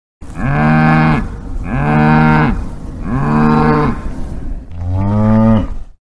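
Cow mooing four times, each moo about a second long and rising then falling in pitch; the last moo is lower and cuts off suddenly.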